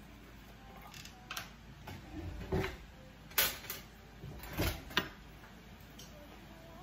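Kitchen handling sounds: a jar of minced garlic being opened and a kitchen drawer pulled open, about six short clicks and knocks spread through, the loudest near the middle.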